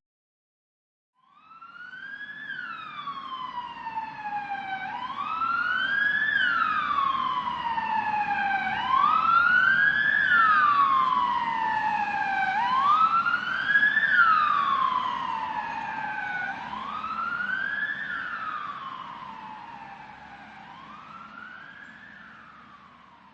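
Ambulance siren on a slow wail, its pitch rising quickly and falling more slowly about every four seconds. It starts after about a second of silence, grows louder toward the middle and fades away as the vehicle passes, with low road noise underneath.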